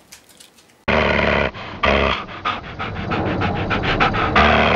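A dog's loud, rapid breathing, a quick run of short breaths several per second with stronger bursts in between. It starts abruptly about a second in.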